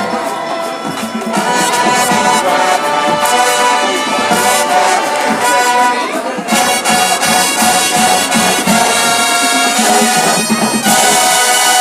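Marching band's brass section playing a loud tune, with trombones and trumpets to the fore, swelling louder about a second and a half in.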